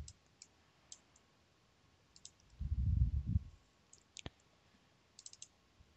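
Light clicks of a computer mouse and keyboard, some single and some in quick runs of two or three, with a low muffled puff about halfway through.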